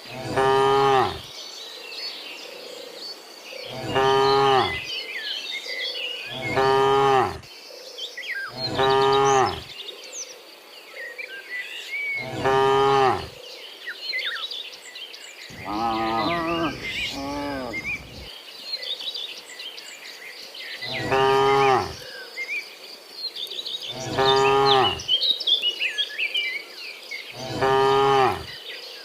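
A herd of cattle mooing again and again: about nine long, low calls roughly three seconds apart, two of them overlapping near the middle. A steady high buzz and scattered chirps run underneath.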